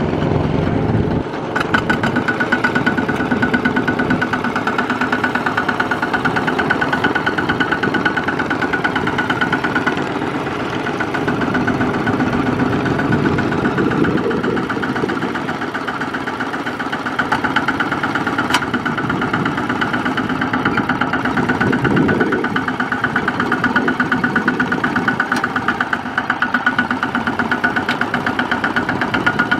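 Single-cylinder diesel engine of a Kubota ZT155 two-wheel walking tractor running under load with a fast, even chug, growing louder and softer a few times as it tries to drive out of deep mud.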